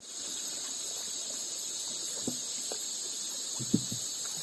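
Steady high-pitched chorus of insects, with a few brief soft knocks about halfway through and near the end.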